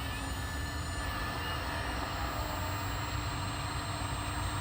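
1/14-scale RC hydraulic excavator running: its hydraulic pump gives a steady whine over a low rumble, with brief shifts in pitch as it works.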